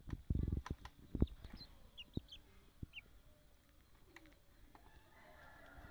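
Two young cockerels sparring: a flurry of heavy wing-beats and body thumps in the first second and a half, then short high chirps dotted through the rest.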